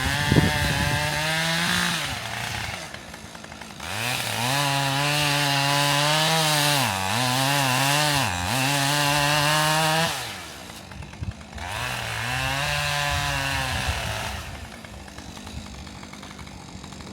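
Husqvarna two-stroke chainsaw cutting a tree: revved hard in three stretches, dropping back to a quieter low speed between them. Twice in the longest stretch, its pitch dips briefly as the chain bogs down in the wood.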